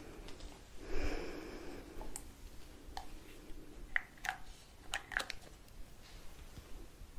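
Close-miked ASMR mouth sounds: a soft breathy exhale about a second in, then a scatter of small wet clicks and lip smacks.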